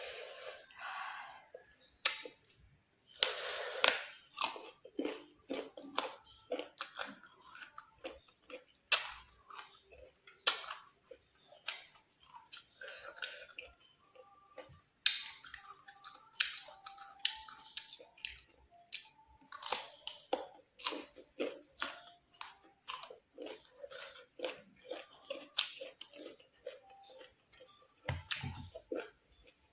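Close-miked chewing of crunchy raw green mango: a steady run of crisp crunches and wet mouth clicks, with a few louder bites scattered through.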